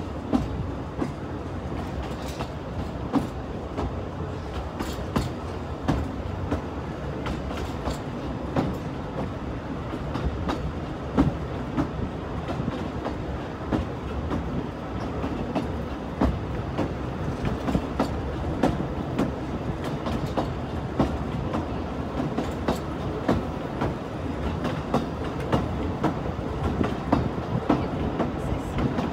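Narrow-gauge railway coach running along the track, heard from on board: a steady low rumble with frequent sharp clicks and knocks from the wheels and the coach.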